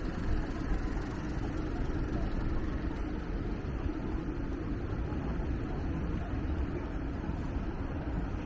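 Steady low rumble of city street traffic, with no single sound standing out.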